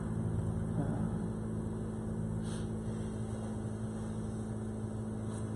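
Room tone: a steady low hum with no speech.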